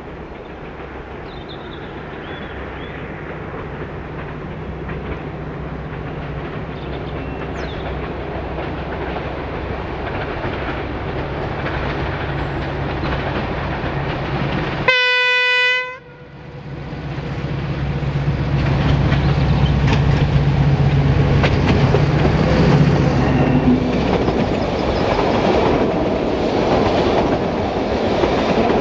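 Narrow-gauge BDZ class 77 diesel locomotive approaching with its engine growing steadily louder, sounding one horn blast of about a second near the middle. It then passes close with the engine running loud, followed by the carriages clattering over the rail joints.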